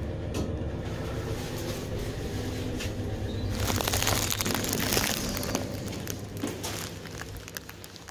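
Passenger lift car humming steadily on its way down, then a louder stretch of rustling and handling noise from about three and a half seconds in, followed by scattered short taps and clicks as the ride ends at the lobby.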